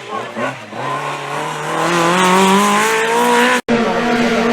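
Rally car engine accelerating, its pitch rising steadily for a couple of seconds, then a sudden brief break in the sound about three and a half seconds in, after which the engine runs on steady at the higher pitch.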